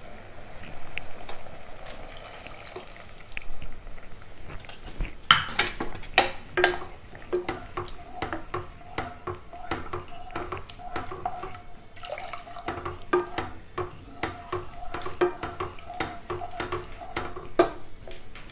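A milk and rice-flour mix is poured into a pressure pan of cooked bottle gourd. From about five seconds in, a wooden spatula stirs it, knocking and scraping against the metal pan over and over with short ringing clanks.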